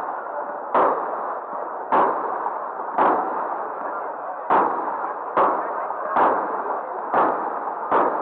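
Aerial firework shells bursting: sharp bangs roughly once a second, eight in all, over a steady background noise.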